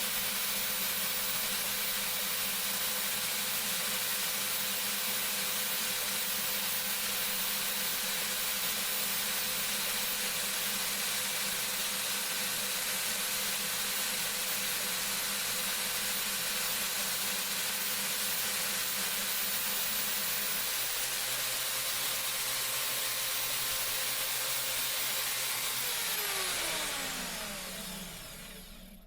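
Hercules 5-inch deep cut portable band saw running steadily through a test cut. Near the end it is switched off, and its whine falls in pitch as the motor and blade spin down.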